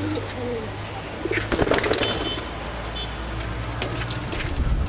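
Domestic pigeons cooing in low, wavering calls, with a few sharp knocks and rustles, the loudest about a second and a half in and again near the end.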